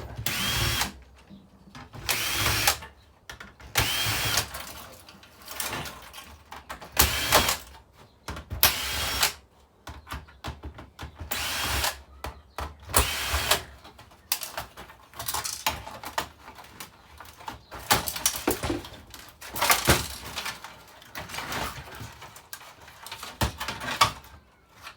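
Cordless drill-driver running in short bursts of under a second, each spinning up with a rising whine as it backs screws out of a flat-screen TV's metal panels. Small clicks and clatter of parts come between the bursts.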